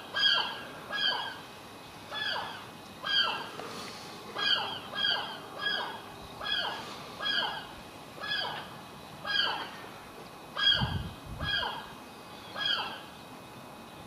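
Gulls calling over and over, short downward-sliding calls repeated about once a second. There is a brief low rumble about eleven seconds in.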